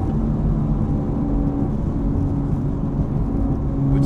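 Acura Integra Type S's turbocharged four-cylinder running through a new Milltek non-resonated cat-back exhaust, heard inside the cabin while driving: a steady low exhaust drone, rather tame in the normal drive mode.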